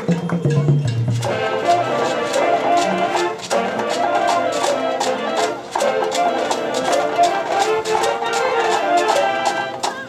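High school marching band playing. A few low bass notes sound, then about a second in the full brass section comes in with chords over regular drum and percussion hits.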